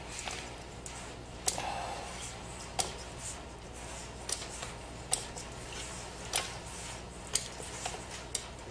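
Hands working salt-crust dough in a stainless-steel mixing bowl, with light clicks and taps against the metal bowl about once a second over a low steady hum.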